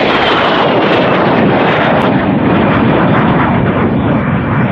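MiG-17 jet fighter's single turbojet engine, loud and steady as the jet flies past, with a faint falling whine in the first second or so.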